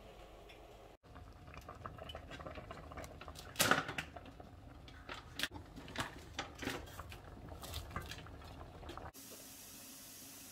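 Soup simmering in a stainless steel pot while a slotted spatula stirs it, knocking against the pot several times, loudest once about a third of the way in. Near the end the clatter stops and only a steady faint hiss remains.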